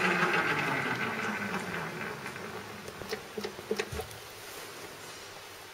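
Union BFT125/5 horizontal boring machine's spindle drive winding down, its steady hum fading away over the first two or three seconds. This is followed by several short clicks and clunks as the speed-change levers are moved to select a higher spindle speed.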